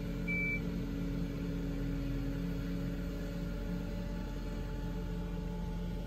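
Compact street sweeper reversing with its engine and suction running steadily, giving one last short reversing beep just after the start.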